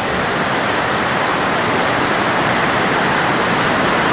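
Steady rush of flowing water, an even hiss with no breaks or pauses.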